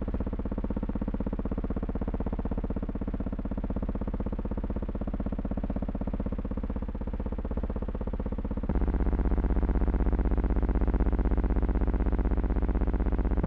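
A steady electronic buzz made of a stack of even tones with a fast, fine flutter. About nine seconds in it switches abruptly to a louder, deeper buzz. No separate gunshots stand out.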